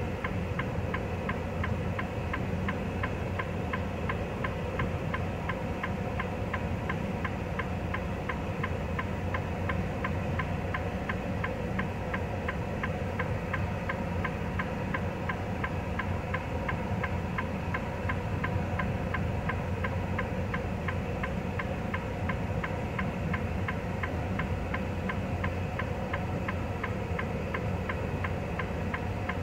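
Semi-truck idling, heard from inside the cab: a steady low hum with a fast, even ticking.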